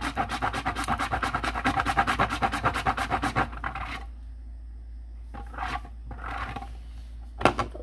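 Wax candle being grated on a flat metal cheese grater: quick rasping strokes, several a second, that stop about three and a half seconds in, followed by a few separate scrapes and a sharp one near the end.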